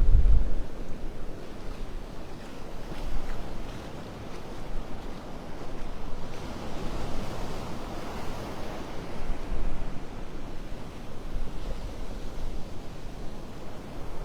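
Gulf surf washing up on the beach, with a broad wash that swells about halfway through. Wind buffets the microphone with a low rumble at the very start.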